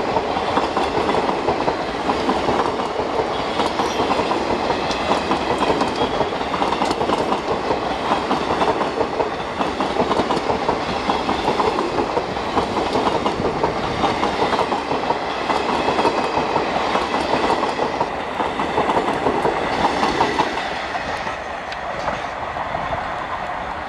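Passenger coaches of an express train rattling past at speed, wheels clattering over the rail joints in a steady clickety-clack. The noise falls away about twenty seconds in.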